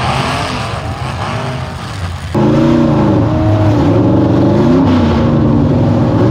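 Demolition derby car engines revving in the arena. About two seconds in the sound jumps louder to one derby car's engine heard from inside its cab, revving up and down.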